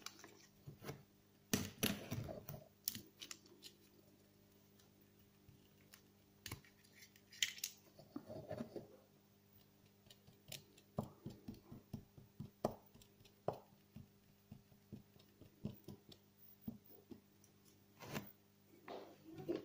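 Quiet handling noise: scattered small clicks, taps and rustles of fingers working a glue tube and a leadcore fishing rig on a tabletop, with a denser clatter about two seconds in.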